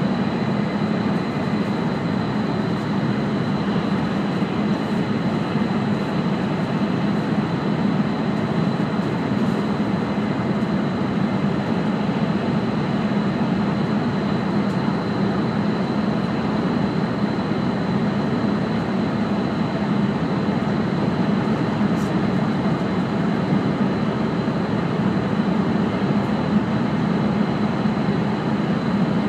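Steady cabin noise of an E5 series Shinkansen running: an even low rumble and rush that does not rise or fall, with a faint steady high-pitched tone over it.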